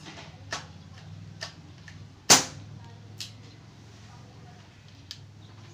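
CO2 airgun's action worked by hand: several metallic clicks and one loud, sharp snap about two and a half seconds in.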